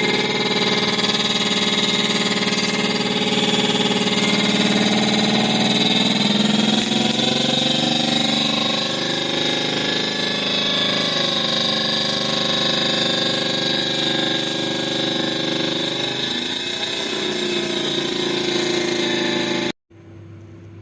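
Refrigerator running with a loud, steady mechanical buzz and rattle, the abnormal noise the repair is meant to cure. Its pitch drifts a little in the middle and again later, and it cuts off sharply near the end.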